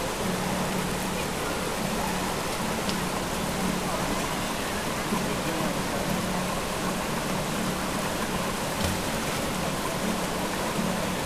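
Creek water rushing and rippling over boulders and stones, a steady even wash of sound.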